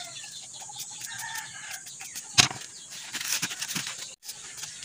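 Woven plastic sack rustling and crackling as rolled fishing rigs are pushed into it, with one sharp knock about two and a half seconds in. Chickens cluck in the background.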